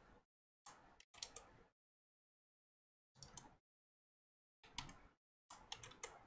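Faint computer keyboard and mouse clicks while editing in Blender, in several short bursts with dead silence between them.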